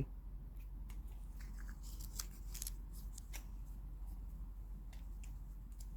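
Faint, irregular small clicks and scratches as a squirrel handles a hazelnut held out in a hand.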